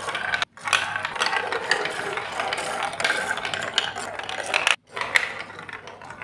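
Plastic ball rolling and rattling along curved plastic marble-run track pieces, a continuous clattering full of small clicks. It cuts out abruptly for an instant about half a second in and again near the end.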